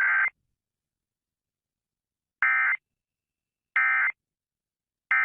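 Emergency Alert System digital data tones (SAME code): a long squawking burst ends just after the start, then three short identical squawks follow about a second apart, the pattern of the end-of-message code.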